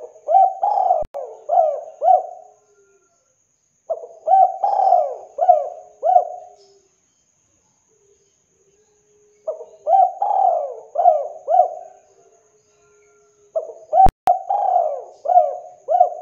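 Spotted dove cooing: four phrases of four or five coos each, a few seconds apart. A sharp click sounds during the last phrase.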